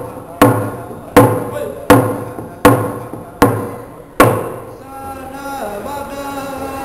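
A Native American hand drum song: a rawhide hand drum struck with a beater in a slow, steady beat, about one stroke every three quarters of a second, under a man singing. The drumming stops after six strokes, about four seconds in, and the voice carries on alone in held notes.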